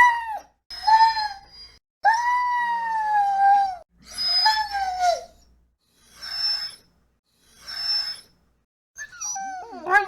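A dog whimpering: a series of high-pitched whines, each bending up and down in pitch, the longest lasting nearly two seconds, with two quieter, breathier whimpers in the second half.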